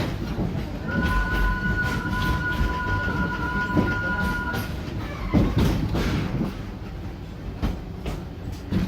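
Wildlife Express Train running on its track with a steady rumble and clatter. About a second in, a high two-note tone starts and holds steady for nearly four seconds.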